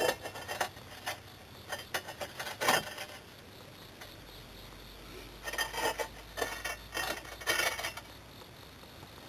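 Ceramic bowls clinking and knocking against the kiln shelves as they are set in place while loading a noborigama kiln. There are two flurries of light clinks, one in the first few seconds and another a little past halfway.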